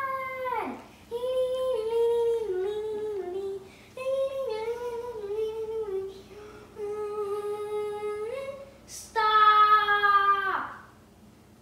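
A child's voice singing a slow, wordless tune in about five held phrases, the last one the loudest.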